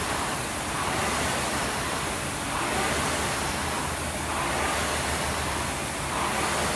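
Air-resistance flywheel of an indoor rowing machine whooshing under a flat-out 2 km test, swelling with each drive stroke about every 1.7 seconds.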